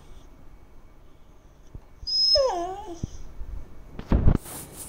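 Beagle whining for attention: one short whimper about two seconds in, its pitch wavering downward. A brief noisy rustle near the end.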